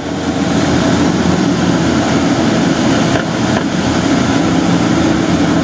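Street sweeper truck running: a steady engine hum under a loud, even rushing hiss.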